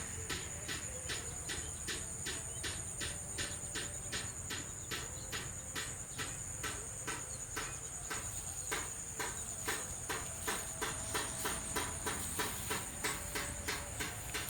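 Sparrow-scaring device in a rice paddy clacking in a steady rhythm, about three to four clacks a second, over a continuous high buzz of insects.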